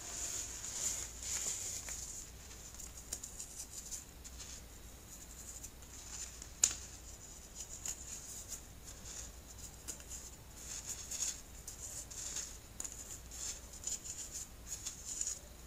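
Hands squeezing and crumbling packed baking soda, giving an irregular run of soft crunches and fine crackles, with one sharp click about six and a half seconds in.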